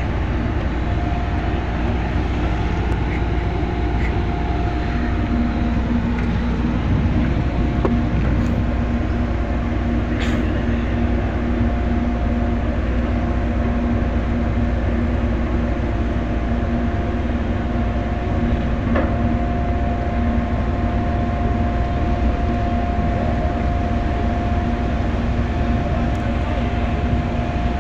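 Tugboat's diesel engines running steadily under load while the tug pushes against a ship's hull: a constant low drone with a steady whine over it.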